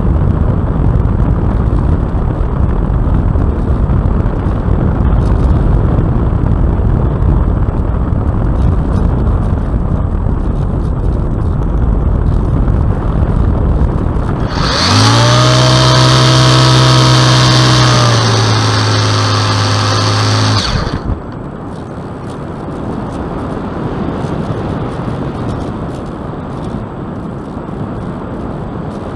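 Airflow rushing over a camera microphone strapped under a Piper Cub in flight. About halfway through, the aircraft's engine and propeller come in for about six seconds as a loud, steady buzz that drops a little in pitch, then cut off abruptly, leaving a quieter rush.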